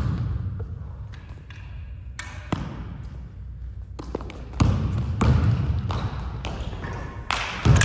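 Basketball dribbled on a hardwood gym floor: a handful of separate, uneven bounces, each echoing in the large hall.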